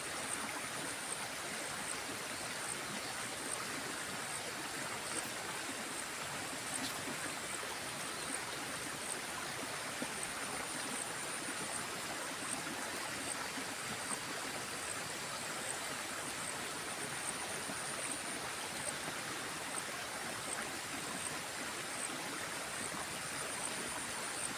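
Small stream running steadily. A faint high chirping repeats at a regular pace in the background.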